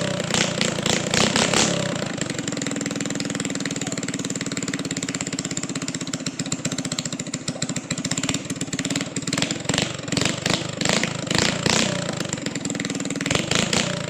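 Suzuki Shogun 125 motorcycle engine running at a steady idle with repeated quick throttle blips, revving up and dropping back, bunched near the start and again through the last few seconds.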